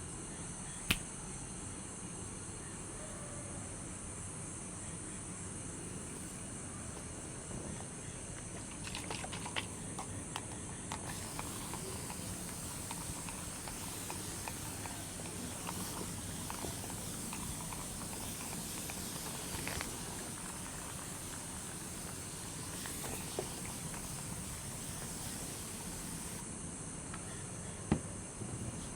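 Night-time nature ambience: a steady high chirring of crickets over a soft hiss of light rain, with a few scattered sharp clicks and taps, the loudest about a second in and near the end.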